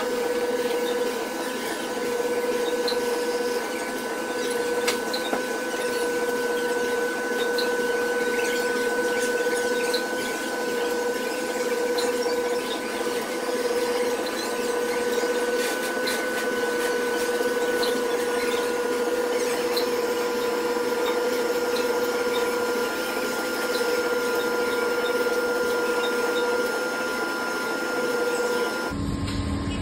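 Steady mechanical hum with several held tones over a noisy whir, like a small electric motor running. One tone drops slightly in pitch past the midpoint, and the sound changes abruptly to a lower rumble near the end.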